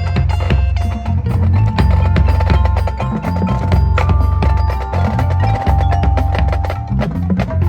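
Marching band playing a percussion-heavy passage: rapid drum strikes over ringing mallet-percussion and bell tones, with a steady low bass underneath.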